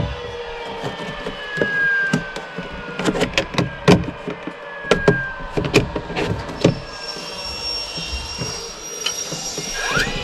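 Vinyl soffit panels being handled and pushed into place overhead: a run of sharp plastic clacks and knocks, with short squeaks as a panel scrapes along its channel.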